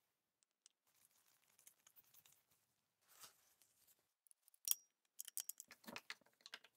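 Near silence broken by small clicks as Makita 9005B angle grinder parts are handled by hand: a sharper click about two-thirds of the way in, then a quick run of light clicks near the end.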